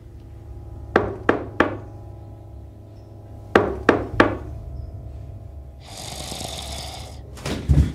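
Three quick knocks, then three more about two and a half seconds later, over a low steady hum; a rushing hiss follows about a second and a half before the end.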